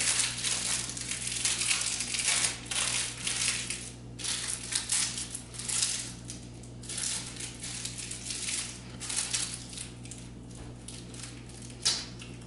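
Plastic ice pop wrapper crinkling and crackling in irregular bursts as it is handled and worked open, then one sharper crunch near the end as the frozen pop is bitten.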